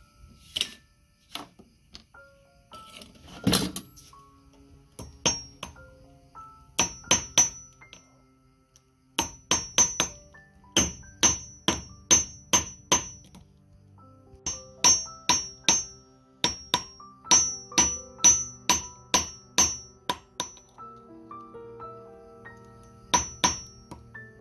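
Hand hammer striking a thin metal strip held in pliers on a steel anvil: sharp ringing blows, about two or three a second, in several runs with short pauses between. Soft background music plays underneath.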